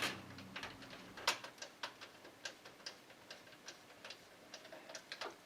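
Scattered light clicks and taps, several a second and irregular, of small computer parts being handled. The strongest clicks are at the very start and about a second in.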